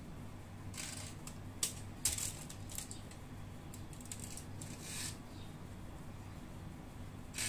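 Chopped vegetables being scattered by hand onto bread slices on a foil-lined baking tray: scattered light clicks and crinkles of the aluminium foil, busiest between about one and five seconds in, with one more near the end, over a low steady hum.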